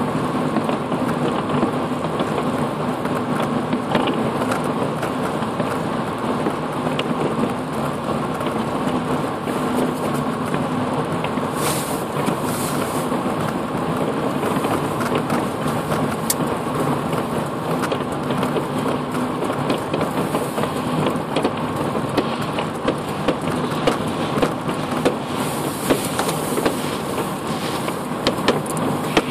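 Steady tyre and road noise with engine hum inside a moving car's cabin on a wet, snowy road. Scattered sharp pops, more of them near the end.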